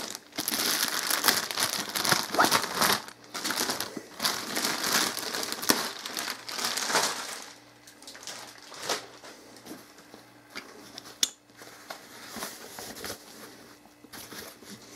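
Thin clear plastic bag crinkling loudly as a camera shoulder bag is pulled out of it. After about seven and a half seconds it drops to quieter, scattered rustling as the fabric bag is handled, with one sharp click about eleven seconds in.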